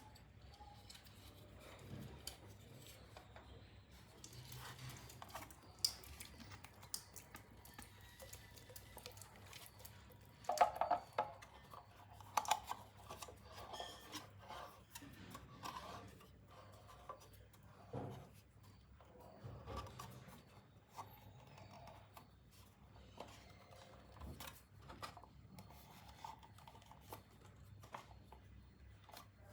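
Scattered light clicks, taps and clatter of small hard objects being handled, busiest about a third of the way in, over a faint steady low hum.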